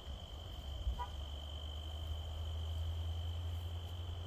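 Late-summer insect chorus: one steady high-pitched trill throughout, over a low rumble, with a short chirp about a second in.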